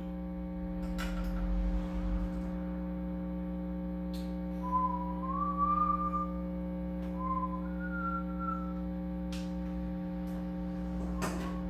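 Steady electrical hum and buzz from a guitar amplifier and pedal chain: the unwanted noise being traced, which the owner suspects comes from the pedal power supply. In the middle a person whistles a few short sliding notes, and there are a few faint clicks.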